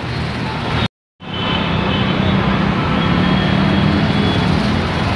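Motorbike and scooter engines running as they ride through flowing floodwater, over a steady rush of water. The sound cuts out completely for a moment about a second in.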